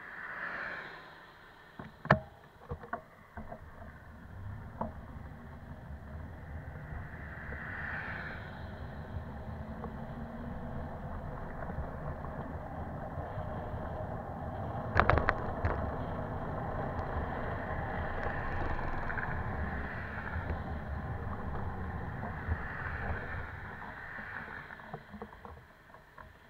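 Steady rumble and wind noise of a bicycle riding along a road, picked up by a camera mounted low on the bike, with sharp knocks and rattles about two seconds in and again around halfway. Cars pass in the adjacent traffic lanes a few times.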